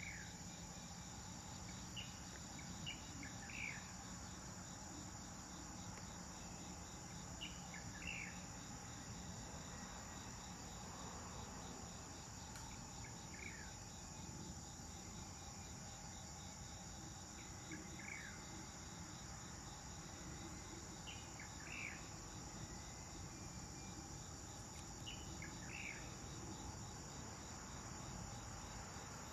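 A steady, high-pitched chorus of insects, with short falling bird chirps, often two or three together, every few seconds.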